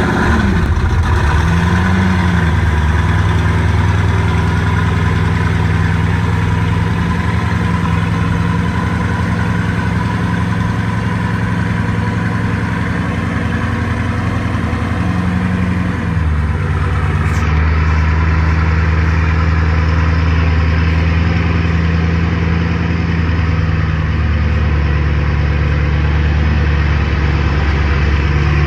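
Bugatti Divo's quad-turbocharged W16 engine idling just after start-up. The revs flare up briefly in the first couple of seconds and then settle. About sixteen seconds in the idle drops to a lower, steady note.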